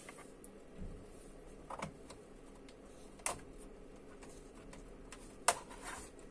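Scattered small clicks and taps of hand tools and screws on a laptop's plastic case, with two sharper clicks about three and five and a half seconds in.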